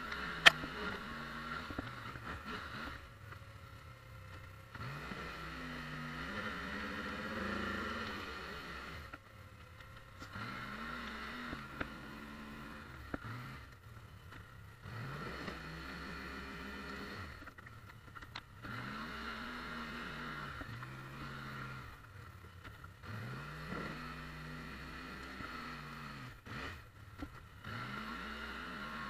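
Polaris Sportsman 850 ATV's twin-cylinder engine revving up and dropping back over and over as it pushes snow with a front plow, with short quieter lulls between passes. A sharp knock sounds about half a second in.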